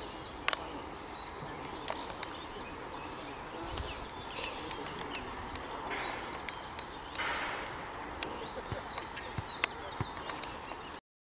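Outdoor ambience at a football pitch: a steady background hum with faint distant voices and some birdsong, broken by a few sharp clicks. The sound cuts out briefly just before the end.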